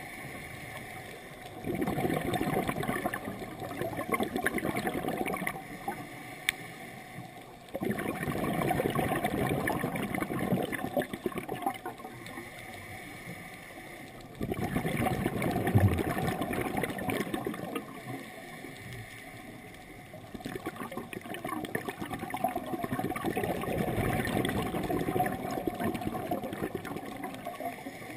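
Scuba diver breathing through a regulator underwater: four long gurgling bursts of exhaled bubbles, each lasting about four seconds, alternating with quieter stretches of inhaling, about one breath every six seconds.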